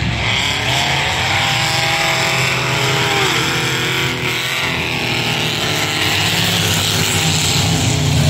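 Enduro-race pickup trucks running at speed on the track, several engines blending into a steady drone, with one engine's pitch falling about halfway through.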